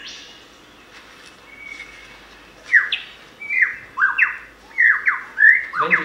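Superb lyrebird singing its courtship display song, played back over a lecture hall's speakers. It is faint at first, then from about three seconds in comes a run of loud, quick, falling whistles, one after another.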